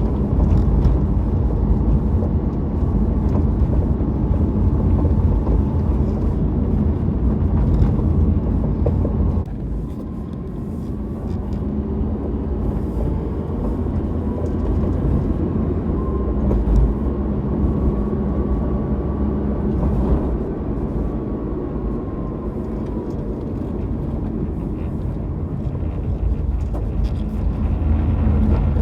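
Honda Vamos van driving: steady engine and road rumble with a faint whine that rises and then falls, and the level dropping about ten seconds in as the engine eases off.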